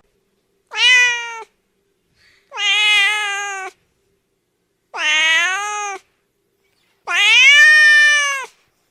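Domestic cat meowing four times, each meow a drawn-out call with a slight rise and fall in pitch, the last one the longest.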